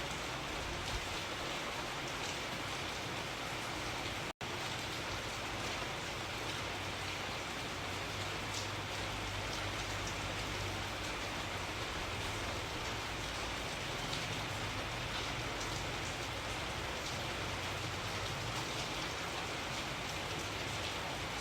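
Steady rain falling and pattering on a surface, with a momentary cut to silence about four seconds in.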